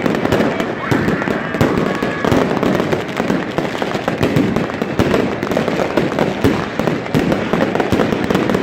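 Many fireworks and firecrackers going off at once: a dense, unbroken barrage of bangs and crackles.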